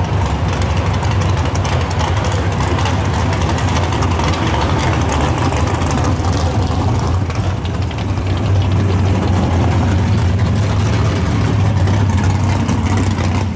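Drag-race cars' engines idling as they drive slowly past. The sound gets louder about two thirds of the way in as one car passes close.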